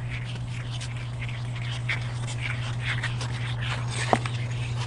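Foamed-glass cleaning block rubbed in short scratchy strokes over polished granite, scrubbing off a film of hard-water calcium. A steady low hum runs underneath, and there is a sharp click about four seconds in.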